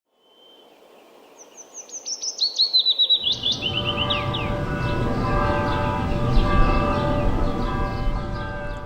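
A bird chirping in quick runs of repeated notes that step down in pitch. From about three seconds in, a steady low rumble with several held tones joins it.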